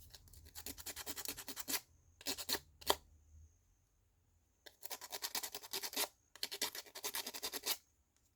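Laser-cut wooden puzzle piece being hand-sanded to remove its cutting tabs: quick back-and-forth scratching strokes in several bursts, with pauses between them.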